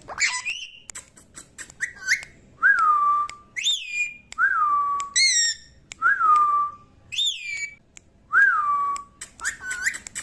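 Parrot whistling the same short note over and over: each a quick upward swoop that falls back and holds for about half a second, about five times, with a couple of higher whistles and small clicks in between.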